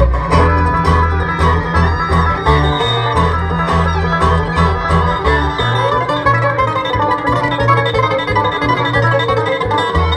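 Bluegrass band playing an instrumental passage: banjo rolls and guitar over a walking upright bass, with fiddle.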